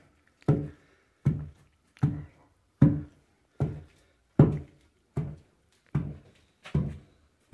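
Wooden pestle pounding a peanut, sugar and corn-flour mix in a wooden pilão (mortar) to make paçoca: a steady series of dull thuds, about one every three-quarters of a second.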